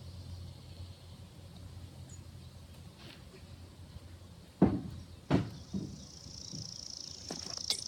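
Footsteps on grass right beside the microphone: two sharp thumps about two-thirds of a second apart, then a few fainter ones. A steady high buzz comes in near the end.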